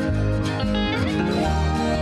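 Background music led by guitar, with a bass line that changes notes about every half second.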